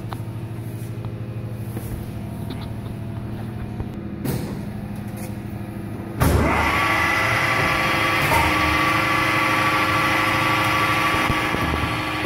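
Kilia 130 mm industrial mixer-mincer running with a low electric hum. About six seconds in, a louder machine whir with several steady tones starts abruptly and keeps running as a drive motor switches on.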